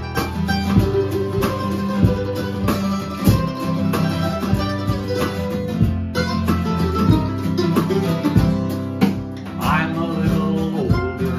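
Instrumental break of a country-bluegrass song: strummed acoustic guitar with mandolin picking over a steady drum-kit beat with cymbal.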